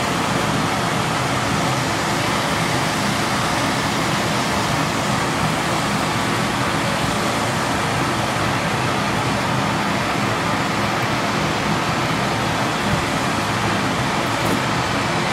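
Glassworking torch flame hissing steadily as glass is heated in it.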